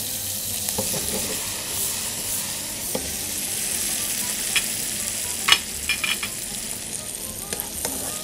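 Diced tomatoes, carrot and garlic sizzling in olive oil in a non-stick pan, a steady hiss. A few light clicks of a wooden spatula against the pan come in the middle as the mixture is stirred.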